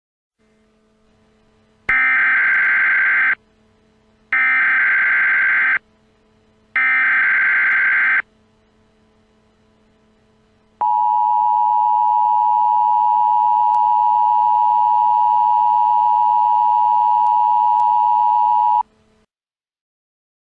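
Emergency Alert System header tones: three bursts of SAME data, about a second and a half each, then the steady two-tone attention signal held for about eight seconds. Together they signal the start of an emergency alert.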